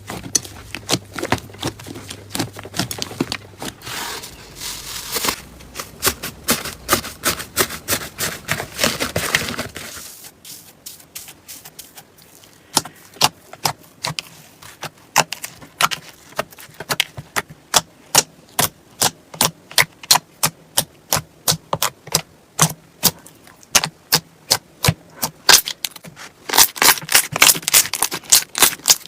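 Slime being squeezed and poked by hand, giving a run of sharp crackling clicks and pops. The clicks come thick and fast at first; after about ten seconds the sound changes to separate pops, two or three a second, that bunch together again near the end.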